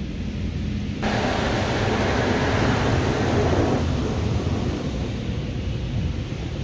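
Water spray hitting a truck's bodywork: a loud hiss starts abruptly about a second in and eases off after a few seconds, over a low steady rumble.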